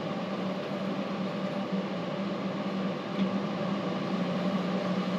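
Air conditioner running: a steady hum and airflow noise with a constant low drone. A faint click comes about three seconds in.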